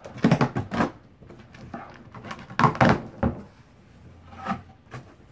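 Steak knife slicing through packing tape on a cardboard box, then the cardboard flaps being pulled open: irregular crackling, scraping and rustling, loudest near the start and again around three seconds in.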